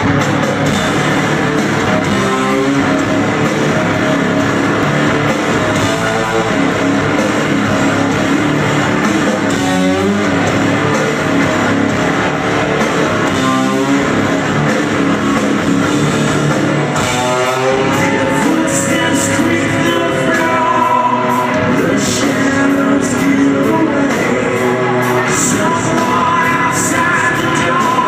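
Rock band playing live in a large hall, heard from the crowd: electric guitars and a sung vocal line over a full band, with long held vocal notes in the second half.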